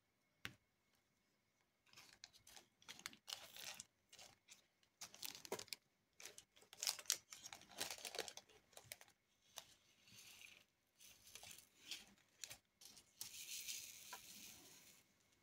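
Small resin diamond-painting drills rattling against a plastic tray in a series of short rattles, with a longer steady rattle near the end as the tray is shaken; a single click about half a second in.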